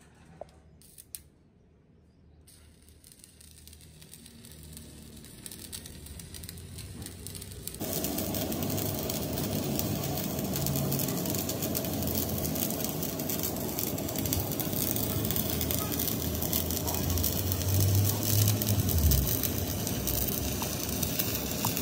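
Stick (arc) welding: the electrode arc crackles and sizzles steadily as weld is laid onto a worn excavator bucket pin to build it back up to size. It starts suddenly about eight seconds in, after two light clicks and a slowly rising, quieter noise.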